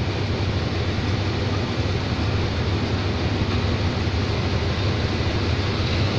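Diesel-electric locomotive idling while standing at a station platform: a steady low engine hum under a constant rushing noise.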